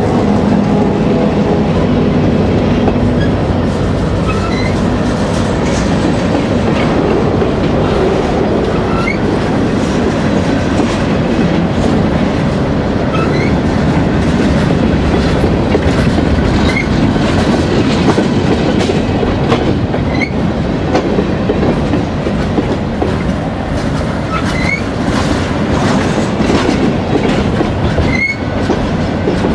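Freight train of covered hopper cars rolling past close by: a steady rumble of steel wheels on rail with clicking over the rail joints and scattered brief high squeaks from the wheels. In the first few seconds the drone of the trailing GP38-2 diesel locomotive's engine fades away.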